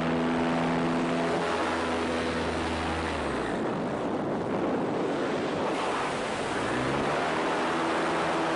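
Paramotor engine running steadily over a rush of wind. About three and a half seconds in it is throttled back, leaving mostly wind rush. It opens up again with a rising note near the end.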